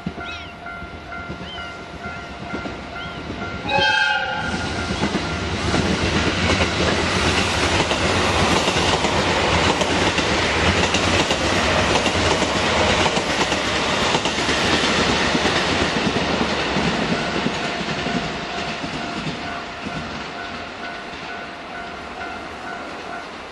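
A train passing by: a short horn blast about four seconds in, then the loud rushing rumble of the cars that builds, holds for several seconds and slowly fades.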